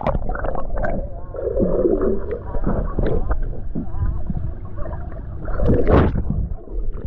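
Muffled underwater sound picked up by a camera held under the surface of a swimming pool: low rumbling water noise with bubbling and a wavering muffled tone about two seconds in, swelling louder briefly about six seconds in.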